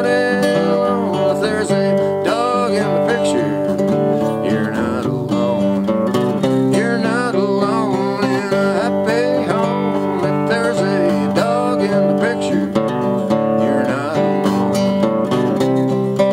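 Gibson steel-string acoustic guitar playing an instrumental break in a folk/Americana song: strummed chords under a melody whose notes slide and bend.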